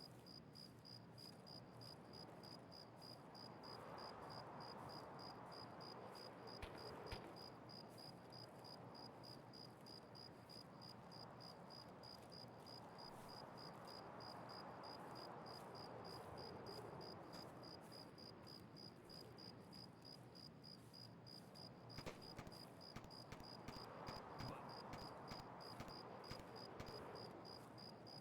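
Faint insect chirping, a high note repeated evenly two or three times a second, with faint rushing swells and a few light clicks.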